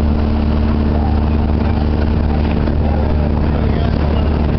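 Motorboat engine running steadily under way, a loud, even low drone.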